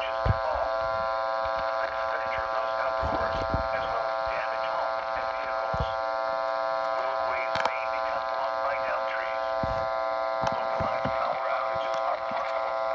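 A steady, many-toned buzz with faint speech underneath, heard through a receiver's speaker: interference on an emergency alert broadcast with a bad signal.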